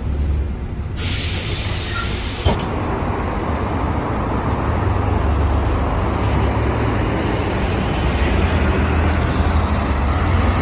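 A loud burst of compressed-air hiss from the LiAZ 5292 bus's pneumatic system, lasting about a second and a half and cutting off sharply. Then the low, steady running of the bus's MAN natural-gas engine as it pulls away, with a fainter air hiss near the end.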